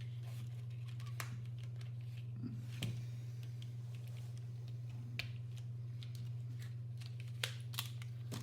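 Scattered light clicks and taps from handling the parts of a mechanical keyboard during repair, over a steady low hum. Two clicks come close together near the end.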